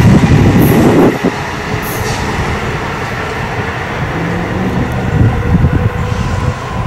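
Amtrak passenger train running along the rails and pulling away. A loud rush of wheel and rail noise drops off about a second in, then a steady, fainter rumble continues as the train recedes.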